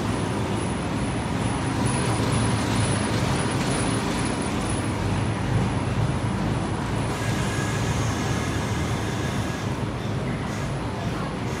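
Bus engines and road traffic running, a steady low rumble with no break.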